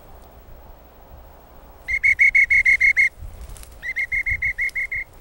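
Dog training whistle blown as a command to a pointing dog: two runs of rapid, short, shrill pips, about six a second, the first about two seconds in and the second about a second later.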